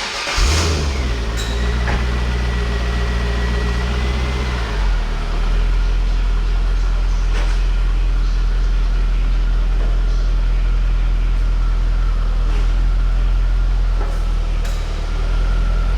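Car engine cranking briefly and firing, running at a raised fast idle for about four seconds, then dropping to a steady lower idle.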